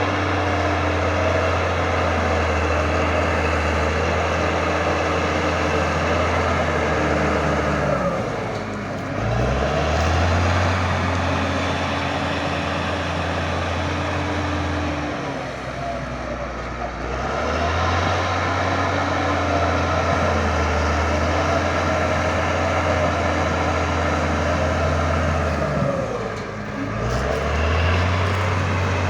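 Cat D6G bulldozer's diesel engine running hard and steadily while working. Three times the engine note sags and then climbs back up.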